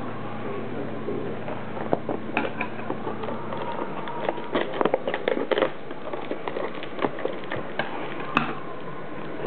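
Small scissors snipping plastic ties on a toy's cardboard packaging tray, with crinkling plastic and irregular sharp clicks of handling, over a steady hiss. The clicks come thickest about halfway through, with one sharp click near the end.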